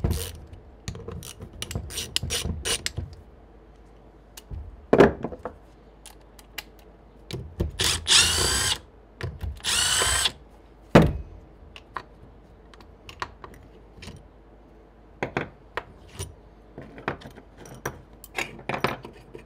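Two short runs of a power driver, each rising in pitch, about eight and ten seconds in, amid clicks and knocks of tools and small metal parts being handled as the compressor's motor casing is taken apart.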